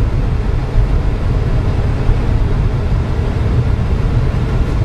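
Steady low rumble of road and engine noise inside a moving car's cabin, driving at a constant speed.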